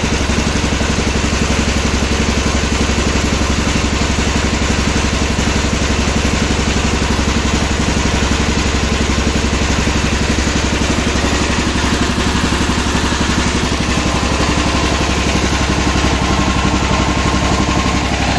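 Homemade garden tractor's small engine running steadily, driving its hydraulic pump.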